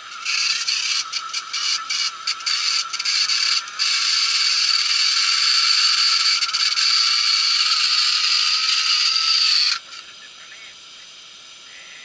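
A small mechanism whirring and rattling: it starts and stops in short spurts for a few seconds, then runs steadily for about six seconds and cuts off suddenly.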